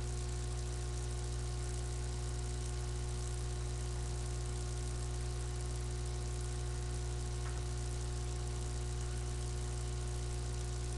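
Steady electrical hum with a layer of hiss, unchanging throughout, with only a faint click about seven and a half seconds in.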